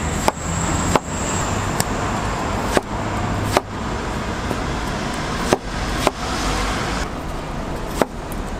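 A large kitchen knife slicing through watermelon and knocking on a wooden cutting board: about eight sharp knocks at uneven intervals. Steady street traffic noise runs underneath.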